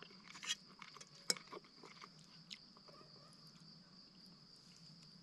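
Crickets trilling steadily in a faint evening insect chorus, with scattered close rustles and clicks of handling, the sharpest about a second in.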